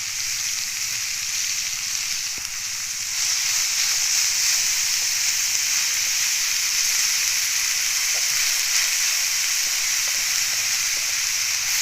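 Wild mushrooms frying in hot oil, a steady sizzle that gets louder about three seconds in.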